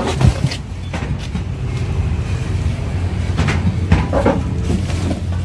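A few short knocks and clunks of a heavy steel palm-oil screw-press cage being handled and lowered off a pickup truck bed, over a steady low hum.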